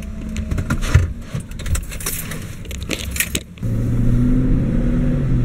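Light rattling and clicking inside a car. About three and a half seconds in, a steady vehicle engine hum with a low drone starts up and keeps going.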